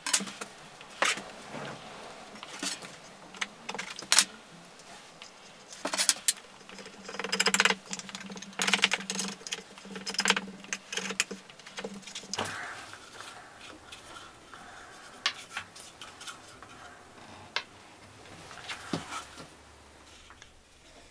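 Small clicks, taps and scrapes of hand work on a small wooden tray as a thin metal tool presses felt lining into its corners, with a busier run of scraping for a few seconds in the middle.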